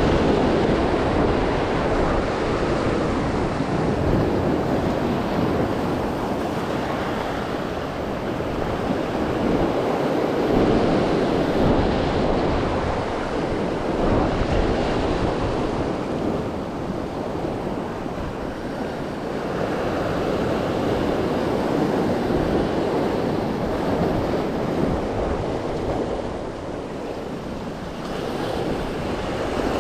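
Rough surf breaking and washing over shoreline rocks, a continuous rush that swells and eases every few seconds, with wind buffeting the microphone.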